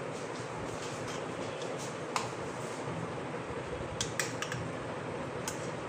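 Steady room noise with a few light, sharp clicks: one about two seconds in, a quick cluster around four seconds, and one more near the end.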